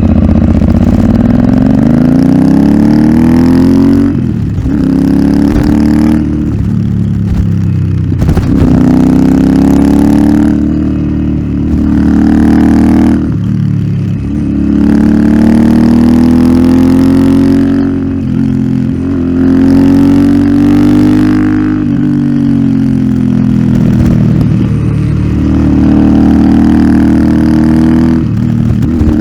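Royal Enfield Interceptor 650's parallel-twin engine through an aftermarket Nuke exhaust, under way. Its pitch climbs as it accelerates and drops back again and again as the throttle closes, with rises and falls every few seconds.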